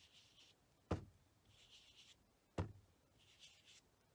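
Sponge dauber applying ink to cardstock: soft, faint swishing as the foam rubs across the paper, broken twice by a sharp tap as the dauber is pressed down.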